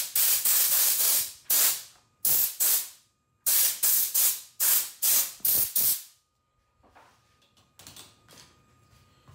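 Compressed-air blow gun on a shop air hose, firing a rapid series of short, loud hissing blasts to blow dust off a jersey. The blasts stop about six seconds in, followed by a few faint knocks.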